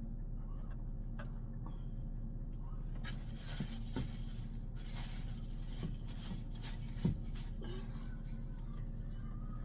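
A steady low hum with scattered light clicks and knocks, and one sharper knock about seven seconds in.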